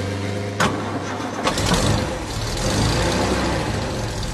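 A vehicle engine: a sharp click a little over half a second in, then about a second later the engine starts and settles into a steady, low running rumble.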